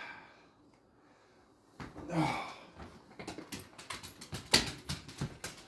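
A man climbing down from a rolling scaffold and walking off. A brief knock comes at the start, then it is nearly quiet until a short grunt about two seconds in. After that comes a quick run of footsteps with clicks and knocks from the tools on his belt, the loudest knock a little past the middle.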